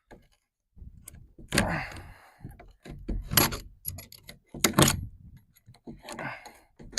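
Wooden shipping crate being pried apart: several sharp knocks of wood and metal with squeaky creaks as boards and nails are worked loose.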